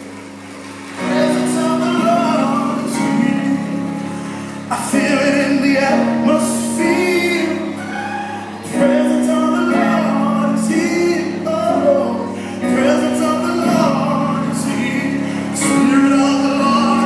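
Gospel music with singing: long held notes in phrases over a steady accompaniment, swelling louder about a second in and again every few seconds.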